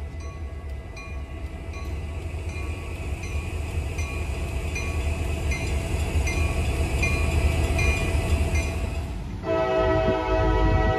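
Two CSX GP40-2 diesel locomotives rumbling past, with a crossing bell ringing about twice a second. About nine seconds in, a locomotive's Nathan K5LA five-chime air horn starts sounding one long chord.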